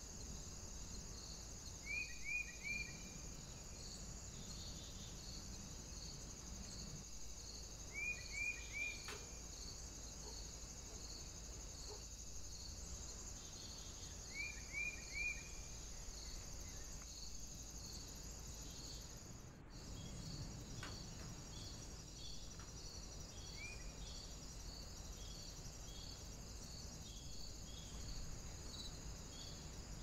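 Insects trilling steadily, high-pitched, with a chirp repeating about twice a second. Over this a small bird calls three quick falling notes, three times, then once more as a single note; the sound drops out briefly about two-thirds of the way through.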